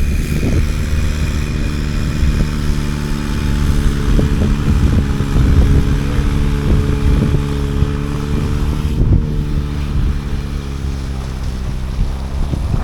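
Engine of a snow-clearing machine running steadily, its pitch dipping slightly near the end, with wind rumbling on the microphone.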